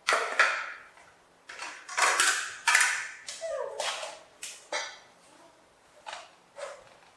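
A metal spoon clinking and scraping against a stainless steel pot and ceramic plates as rice is scooped out and served. It comes as a string of sharp clinks with short ringing tails, with a brief falling squeak about halfway through.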